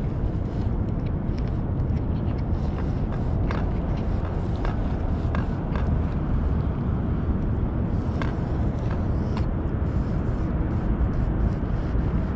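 Steady low wind rumble on the microphone, with a cat's scattered wet chewing and licking clicks close by as it eats wet food from a metal dish.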